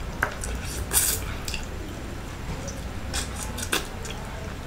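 Close-up eating sounds of a person eating grilled fish with his hands: wet smacking and squishing from the mouth and fingers. A few short sharp smacks stand out, the loudest about a second in.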